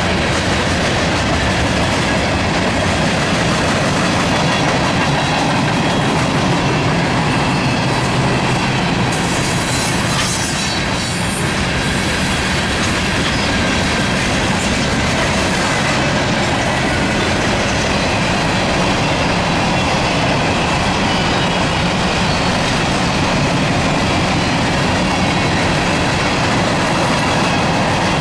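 Freight train cars rolling past close by: a steady, loud rumble and rattle of steel wheels on the rails.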